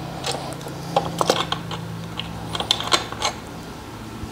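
Steel hand tools clicking and clinking in a quick, irregular scatter: a thread tap being backed out with its T-handle tap wrench and taken off the wrench. A steady low hum runs underneath.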